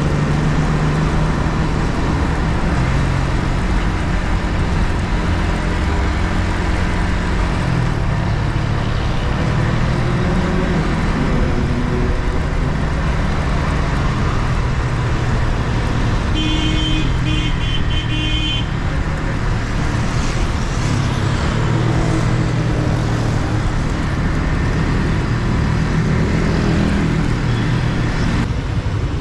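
Yamaha MT-15's 155 cc single-cylinder engine through its stock exhaust, running under way with the revs rising and falling, over road noise. A horn gives a quick series of short beeps a little past the middle.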